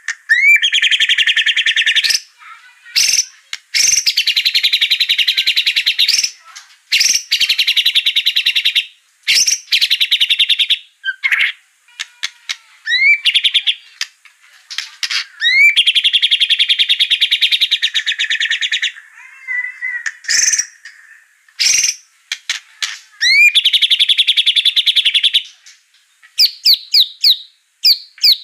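White-rumped shama (murai batu) singing loudly. Clear upward-sweeping whistles lead into several long, very fast rattling trills of two to three seconds each, with short sharp notes and quick rising sweeps between them.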